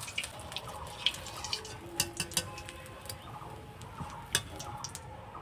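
Scattered light clinks and taps of a metal slotted spoon against a steel kadai and bowl, the loudest about four seconds in.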